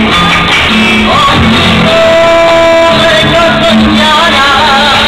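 Live Andalusian music for flamenco dancing: a singer holding a long note, then wavering through ornamented notes near the end, over acoustic guitar.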